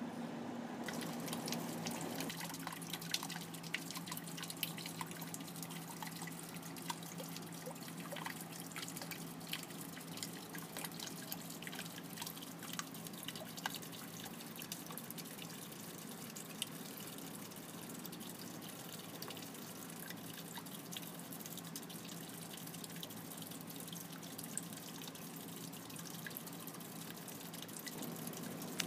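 Water from an aquaponics pump's fountain jet falling back onto the tub's surface: many small, irregular drips and splashes over a steady trickle, with a steady low hum underneath.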